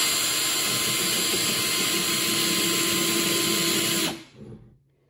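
Cordless drill running at a steady speed with an old chisel bit spinning in its chuck, a steady whine over hiss; it winds down and stops about four seconds in.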